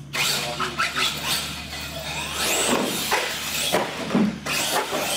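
Radio-controlled monster truck's electric motors whining, rising and falling in pitch as it is throttled on and off, with a few sharp knocks near the middle.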